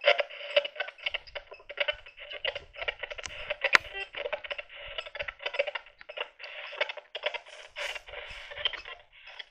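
Spirit box sweeping rapidly through radio stations: choppy fragments of static and broadcast sound chopped many times a second through a small speaker, with a sharp click about four seconds in.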